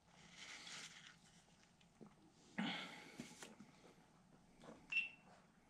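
Faint sounds of a man drinking from a soda can: a breathy sip, then a louder breathy sound about two and a half seconds in. A short high beep near the end.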